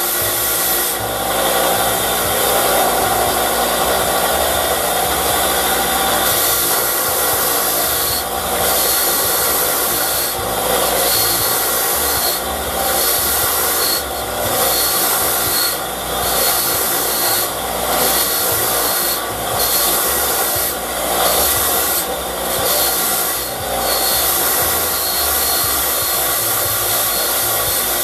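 Bench grinder running with a pitted, rusty steel handle held against its spinning wheel, a steady abrasive scrubbing as the rust is cleaned off. In the second half the part is lifted off and pressed back every second or two, briefly easing the scrub and letting the grinder's whine through.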